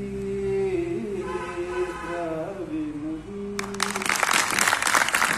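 A female voice sings the closing refrain of a Kashmiri naat unaccompanied, ending on a held note about three and a half seconds in. Applause from a crowd breaks out right after and is the loudest sound.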